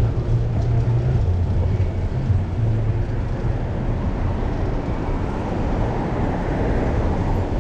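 Steady street-traffic rumble mixed with wind on the microphone of a chest-mounted camera, heard from a moving bicycle. A low hum is strongest for about the first three seconds, then eases.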